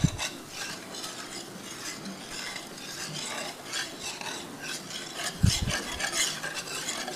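Metal wire whisk scraping in repeated strokes around a metal skillet, stirring a bubbling butter-and-flour roux as it browns, with a light sizzle. A dull low thump at the start and another about five and a half seconds in.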